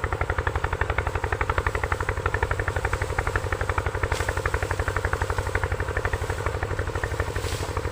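A small engine running steadily with a fast, even beat of about ten pulses a second.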